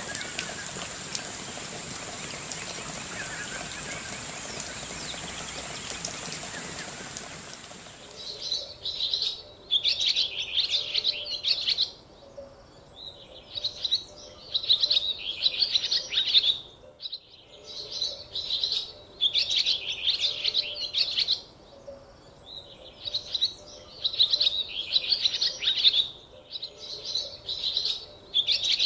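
A steady hiss with a thin high whine for about eight seconds, then birds chirping in quick, dense bursts, each a second or two long, repeating with short pauses.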